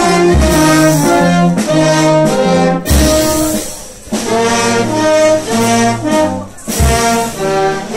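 Brass band playing a tune, with a sousaphone's low bass notes close by under the higher brass melody. The band breaks off briefly about four seconds in, then picks up again.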